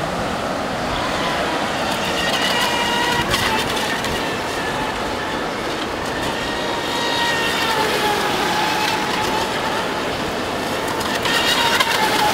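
Atomik Barbwire mini RC speed boat's electric motor whining as it runs across the water, its pitch wavering up and down with the throttle, over a steady rush of water noise.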